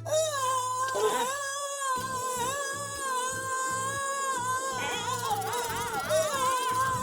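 A held, wavering voice-like moan, heavily altered by audio effects so that it sounds like singing. The effect changes abruptly a couple of times.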